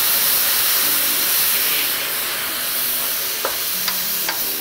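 White wine hissing and sizzling as it hits a hot stainless steel pan of toasted arborio rice and flashes off as steam; the hiss eases a little after about two seconds. Near the end a wooden spoon clicks and scrapes against the pan as the rice is stirred.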